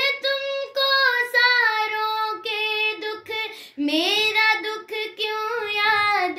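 A young girl singing a slow, melismatic song line with long, wavering held notes, in two phrases, the second starting on a rising note about four seconds in.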